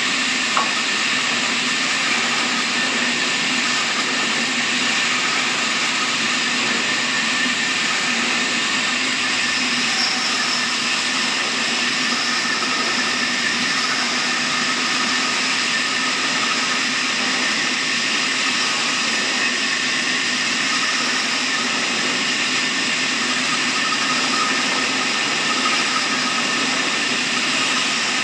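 Horizontal band sawmill running, its blade sawing lengthwise through a large log: a steady, unchanging machine noise with a few held tones over an even hiss.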